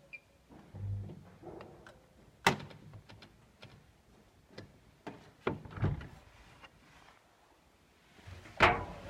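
Bosch washing machine being handled: a series of sharp clicks and knocks, with the loudest one near the end.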